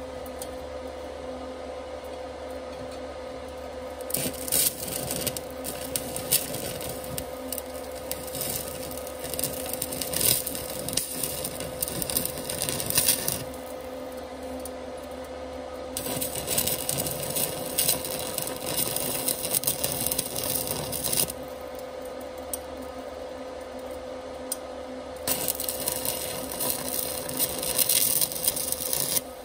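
Electric arc of a small 120 A inverter stick welder crackling and sizzling in three runs of welding: the first lasts about nine seconds, the next two about five and four. Between them only the machine's steady hum with a constant whine is left.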